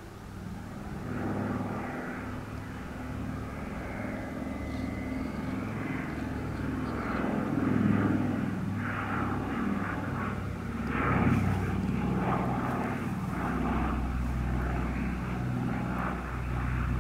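Douglas C-47 Dakota's two Pratt & Whitney R-1830 Twin Wasp radial piston engines and propellers droning as it flies past. It grows louder over the first couple of seconds and swells twice as it comes closer.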